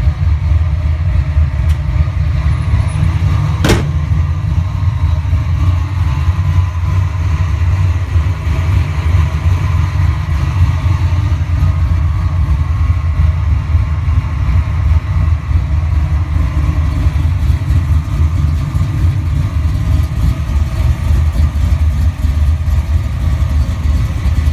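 Supercharged 331 stroker V8 in a Fox-body Mustang idling steadily, with noise from its Vortech V3 Si centrifugal supercharger at idle, which the owner guesses is normal when the blower is not under load. One sharp click about four seconds in.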